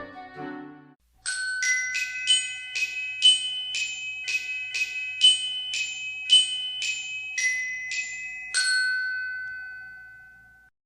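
A short glockenspiel melody of about fourteen struck, bell-like notes, roughly two a second, with the last note left ringing until it fades out. It follows a brief pitched tail of other music in the first second.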